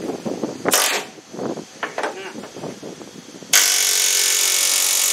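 A power tool starts about three and a half seconds in and runs steadily and loudly through the end, after a stretch of indistinct voice sounds and a brief noisy burst.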